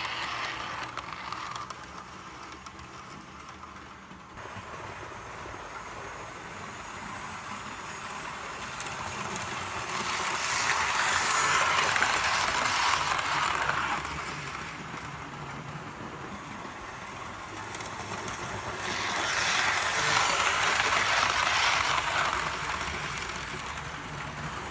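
Two double-headed model steam locomotives (an A1 'Tornado' and an A4) running on the track with a train: the whir of their motors and the rumble of their wheels. The sound swells twice as the train passes close, about ten seconds in and again near twenty seconds.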